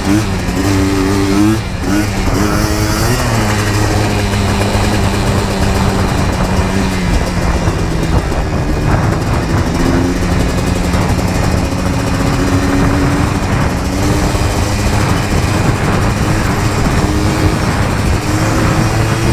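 ATV engine running under way, its pitch rising and falling over the first few seconds, then holding fairly steady.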